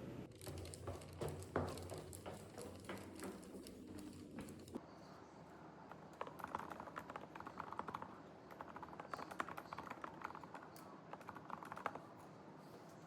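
Typing on a computer keyboard: a steady run of quick, irregular key clicks. A low background hum stops about five seconds in, and the typing carries on.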